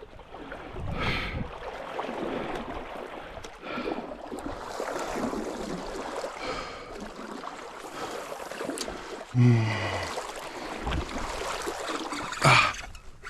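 Small trout stream flowing steadily, with a few short breathy vocal sounds, a louder low falling grunt about two-thirds of the way through, and a sharp louder noise near the end.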